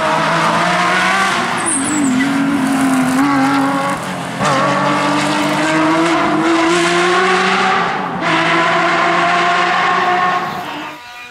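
Porsche 911 rally car's flat-six engine running hard at high revs as the car passes on a gravel stage. The pitch slides up and down, with abrupt breaks about four and eight seconds in, and the sound drops away near the end.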